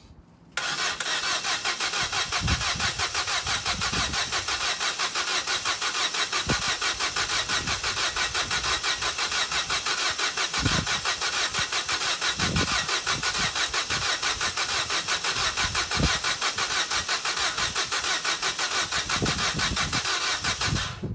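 Vauxhall Corsa E's starter motor cranking the engine for about twenty seconds, the starter driven by a relay bridged by hand, in a fast even rhythm that starts half a second in and cuts off just before the end. The engine does not catch: the car is a non-starter and fuel is not reaching the engine.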